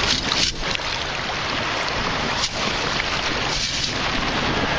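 Waves washing and wind buffeting the microphone, a steady rushing noise with a few brief splashes.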